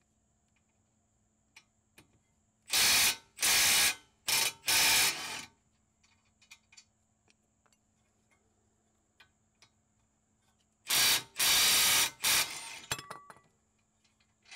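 Power tool run in short loud bursts: four about 3 seconds in, then three more about 11 seconds in, with faint tool clicks between.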